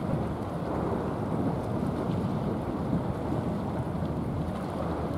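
Steady low rumble of the container ship SITC OSAKA passing close by, its engine and bow wave mixed with wind buffeting the microphone.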